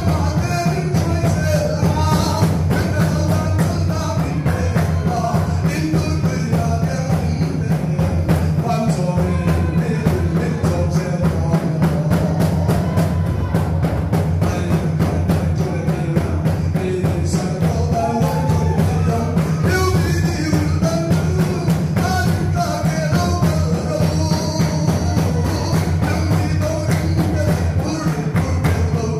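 A congregation singing a hymn together to a fast, steady drumbeat.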